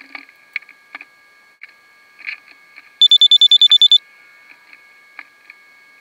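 Electronic beeping: a quick run of about ten short, high beeps lasting about a second, about halfway through. Under it runs a steady high whine with scattered light clicks.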